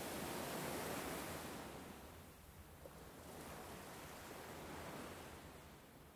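Faint surf washing up a sandy beach: one wave swells in the first second or so and ebbs away, and a smaller one comes in about five seconds in.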